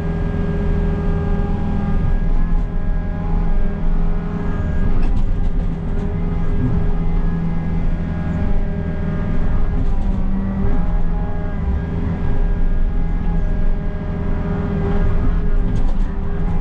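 Takeuchi compact excavator's diesel engine running steadily at working speed while it digs a trench, with a few brief clatters mixed in.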